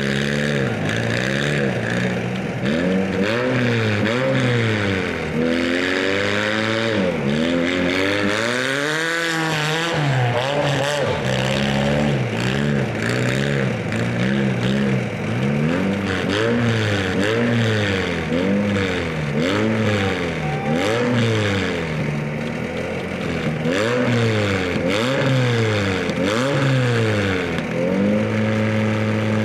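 Demolition derby compact cars' engines revving up and down over and over, pitch rising and falling every second or two, then settling into a steadier held note near the end.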